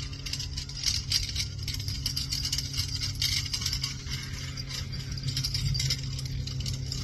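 Hooves of a tandem pair of ponies trotting, with the jingle and rattle of harness and a horse-drawn carriage, over a steady low hum.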